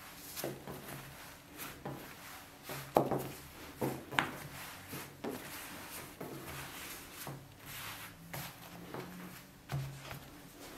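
Hands stretching and pressing yeast dough flat on a floured wooden table: soft rubbing and dull taps of hands and dough on the wood, the loudest about three and four seconds in.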